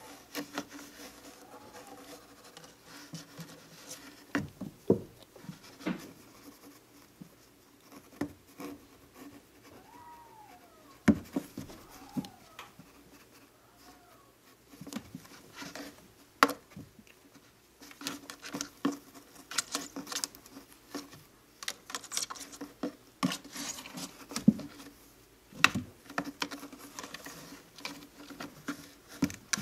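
A kitten batting at and scrambling after a dangled rope inside a carpeted cat tower: scattered knocks and thumps, with paws and claws scratching on the carpet, busier in the second half.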